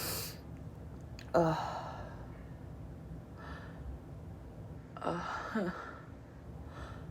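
A woman's sneezing fit, forced high-pitched: the end of a sneeze at the start, a second short, sharp sneeze-like burst about a second and a half in, then gasping breaths near the end as another sneeze builds and does not come.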